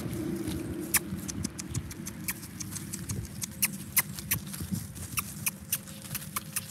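Irregular small clicks and rustles, several a second, from Cavalier King Charles spaniel puppies moving about close by, over a low steady hum.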